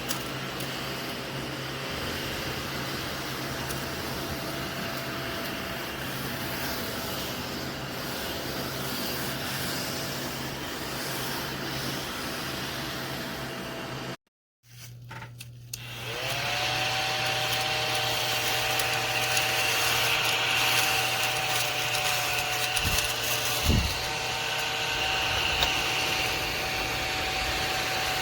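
ODISTAR mini desktop vacuum's small motor running with a steady whine. It cuts out about halfway through, then starts again and spins up, running louder than before. A brief low knock comes near the end.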